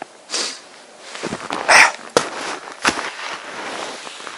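Snow crunching and clothing rustling as a skier bends into deep powder snow, with a loud crunch just under two seconds in and a few sharp clicks.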